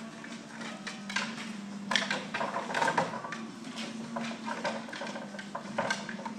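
Irregular knocks and scuffs of a detection dog's paws and claws on a wooden pallet and plywood odor wall as it searches the scent holes.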